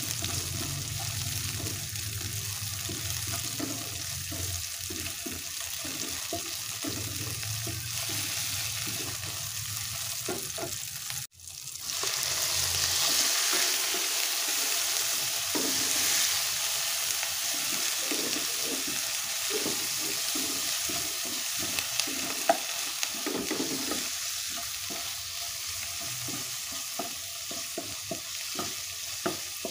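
Minced garlic and chopped red chillies sizzling in hot oil in a nonstick frying pan, with a spatula scraping and stirring them in quick strokes. After a brief drop-out about 11 seconds in, raw shrimp join them and the sizzling is louder as stirring goes on.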